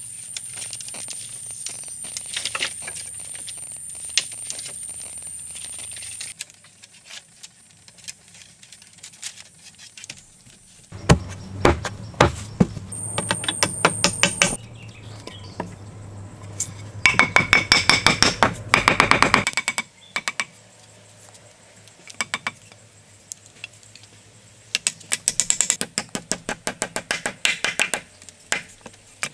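Runs of quick wooden knocks and clatters from bamboo poles and timber being handled and fitted, the loudest and fastest run just past the middle. A wooden mallet knocks on a log plank near the end.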